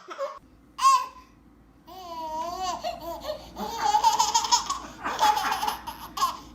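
Baby laughing and babbling: a short squeal about a second in, wavering vocal sounds a second later, then laughing in quick repeated bursts from about four seconds on.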